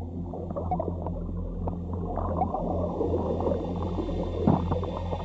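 Muffled underwater rush of a river current, with bubbling and small pops over a steady low hum, and one louder gurgle near the end.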